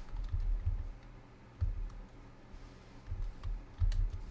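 Typing on a computer keyboard in short irregular clusters, heard mostly as dull thuds, with a sharp click about four seconds in.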